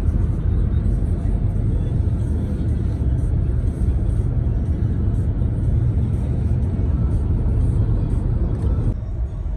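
Car driving, heard from inside the cabin: a steady low rumble of road and wind noise. It drops a little near the end.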